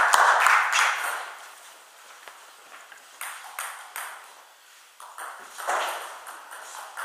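Table tennis ball clicking sharply off bats and table in a rally, with a loud wash of noise over it that dies away about a second in. After a quieter spell with a few scattered ball clicks, the clicks of the next rally start in the last couple of seconds.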